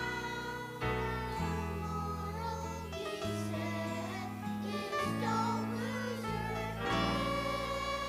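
A children's choir singing a song over instrumental accompaniment, with held bass notes that change every second or two.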